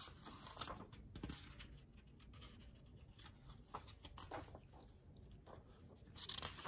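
Faint rustling of paper as a thin paperback picture book's page is lifted and turned, with a few light clicks, and a louder rustle near the end.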